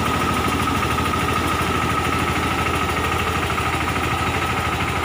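Engine of a three-wheeled 'bullet' mini tractor running steadily while it drives a tractor-mounted air-blast mist sprayer, with a steady high whine over the even engine note.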